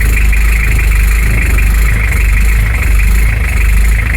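Beta 50 engine idling roughly and surging, its speed rising and falling every second or so, on its first test run just after starting.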